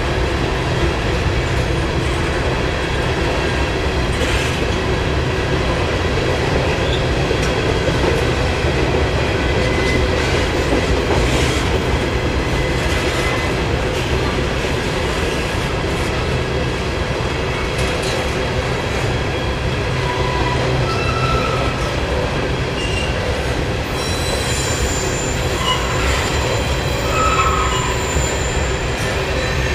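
Norfolk Southern covered hopper cars rolling over a timber railway trestle at about 18 mph: a steady, loud rumble and clatter of wheels on rail. There are a few short, high wheel squeals, most clearly in the second half.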